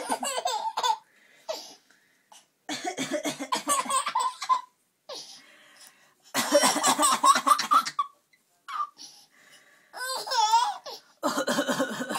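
A baby's belly laughs mixed with a woman's coughing, in about five separate bursts of rapid pulses with short gaps between, including a high wavering squeal a little before the end.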